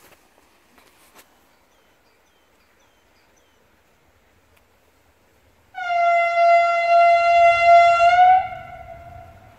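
Train horn sounding one long steady note of about two and a half seconds, starting about six seconds in. Its pitch lifts slightly just before it cuts off, and it fades out afterwards over a low rumble from the approaching train.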